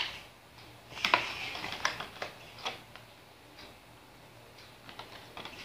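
Clear plastic face shield sheet and its plastic frame being handled and fitted together: a series of light clicks and crinkles, the loudest about a second in, with fewer and fainter ones after about three seconds.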